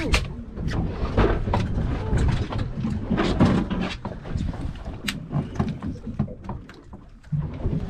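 Wind buffeting the microphone, with scattered knocks and thumps on the boat's fiberglass deck.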